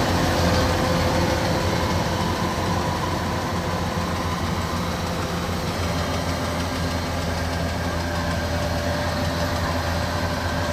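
Kubota DC-93 combine harvester running steadily with an even engine hum, getting a little quieter over the first few seconds and then holding level.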